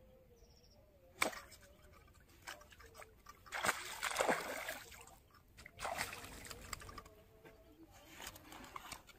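A hooked red-bellied pacu thrashing and splashing at the water's surface as it is played on a fishing rod. A sharp smack comes about a second in, the heaviest splashing comes around the middle, another burst follows a second or two later, and a smaller splash comes near the end as the fish is lifted clear.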